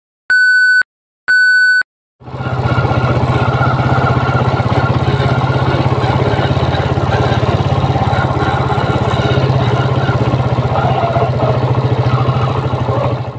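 Two short electronic beeps, then a Suzuki Shogun SP 125's single-cylinder four-stroke engine running steadily with a droning whine, the 'dengung' (hum) that the owner puts down to the primary gears at the clutch. It cuts off shortly before the end.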